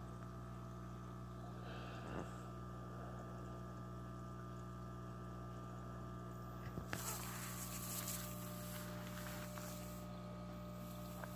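Faint, steady electric hum of an aquarium air pump driving a sponge filter. A brief knock comes about two seconds in, and a short cluster of rustles and knocks around seven seconds in.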